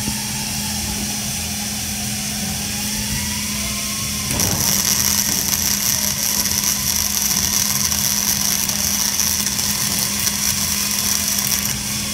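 Electric arc welding on steel: over a steady low hum, the arc strikes about four seconds in and crackles and hisses evenly for about seven seconds, then cuts off near the end.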